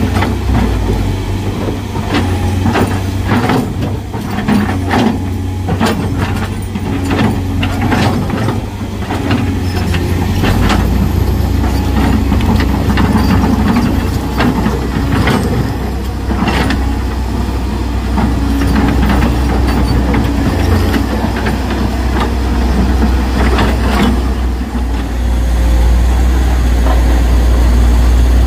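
Heavy truck's diesel engine running close by, with many sharp knocks and rattles through the first half, the engine growing louder near the end.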